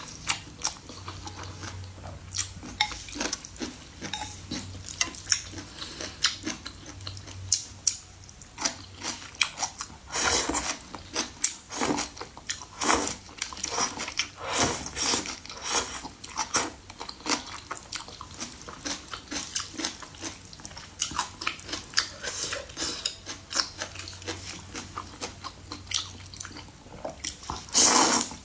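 Close-miked chewing and eating: many short, irregular wet smacks and clicks, with a louder, denser run near the end.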